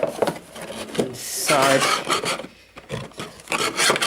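Paper and cardboard packaging rubbing and rustling as the paperwork is lifted out of a box.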